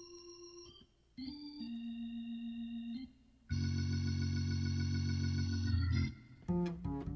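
Background music: held chords that change every couple of seconds, growing louder and fuller about halfway through, with short plucked low notes coming in near the end.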